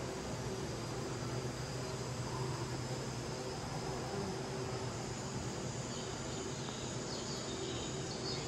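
Steady indoor greenhouse ambience: an even hiss with a constant low hum beneath it, like climate-control fans.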